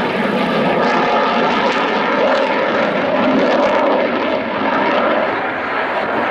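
F-35B Lightning II's jet engine, a Pratt & Whitney F135 turbofan, heard in flight: a loud, steady rushing noise with faint tones running through it, dipping slightly about four and a half seconds in.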